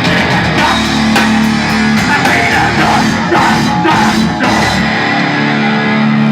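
Live heavy rock band playing loud with distorted guitars and drums; about five seconds in the drum hits stop and a held guitar chord rings on.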